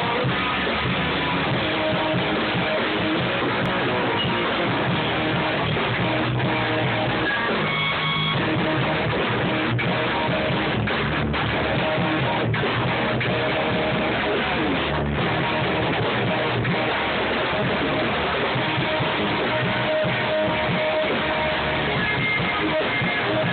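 Loud strummed guitar music, likely electric guitar, playing continuously with a few very short breaks near the middle.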